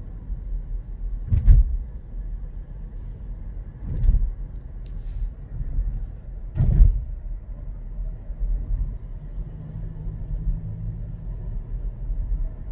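Steady low road and engine rumble inside the cabin of a moving Volkswagen T-Cross Highline, with three dull thumps about a second and a half, four and nearly seven seconds in.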